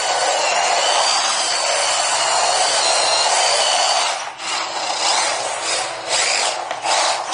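1:18 scale RC drift car's small electric motor whining steadily under throttle while the car drifts, easing off briefly about four seconds in, then pulsed on and off several times near the end.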